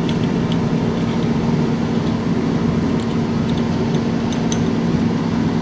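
Steady mechanical hum with one fixed low tone, under a few faint light clicks around the middle as small screws are handled and fitted into a Model A Ford Zenith carburetor body.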